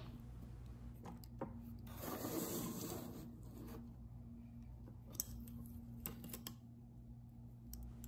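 Baked polymer clay pieces and a paper sheet slid across a wooden tabletop as the work surface is cleared. A soft rubbing lasts about a second and a half, starting two seconds in, with a few light clicks, over a steady low hum.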